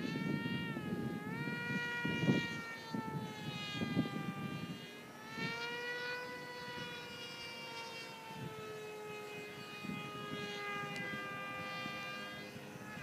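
Radio-controlled scale model of a Short SC.7 Skyvan flying overhead, its motor and propeller whine gliding in pitch: a dip and rise about a second in, then a slow fall through the second half as it passes. Irregular low rumbling noise runs underneath.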